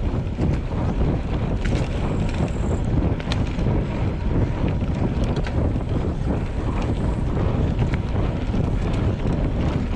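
Steady wind rumble buffeting the microphone, with a few faint short clicks.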